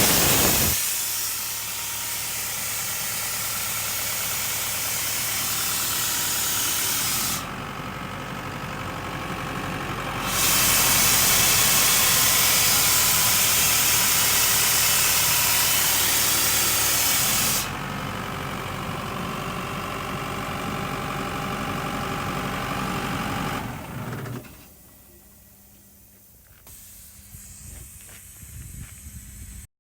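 Chicago Pneumatic portable air compressor running, with compressed air hissing loudly out of an open outlet in two long blasts and a steady engine hum underneath. About 24 seconds in, the sound drops away sharply to a faint hum with a few light knocks.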